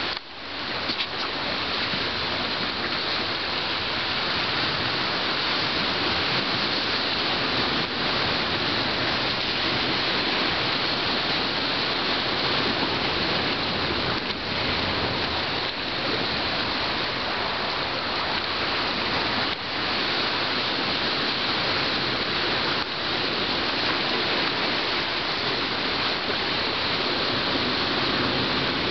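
Steady rush of ocean surf washing on the shore, an even hiss of water with no let-up.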